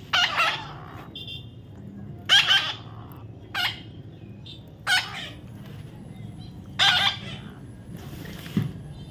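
A parrot calling in a series of loud, harsh squawks, about one every one to two seconds.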